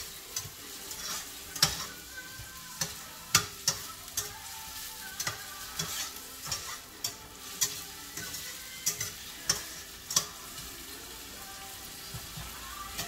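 Diced onions sizzling as they sauté in a little hot oil in a stainless steel frying pan, while a spatula stirs them and scrapes and taps against the pan with sharp, irregular clicks about once a second.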